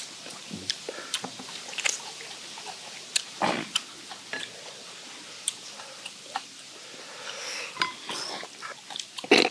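Men chewing and biting into chewy steamed skate, with scattered short clicks and taps of wooden chopsticks on the metal steamer tray and sauce bowls. One louder knock about three and a half seconds in.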